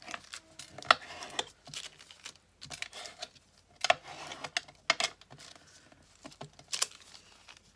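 Thin parchment paper being folded and creased by hand against a cutting mat with a bone folder. It makes an irregular scatter of short crinkles, taps and scrapes.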